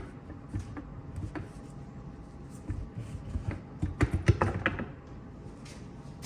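Scattered light clicks and taps of hand tools working on a Muncie M21 four-speed transmission's rear housing, with a quick run of sharper knocks about four seconds in.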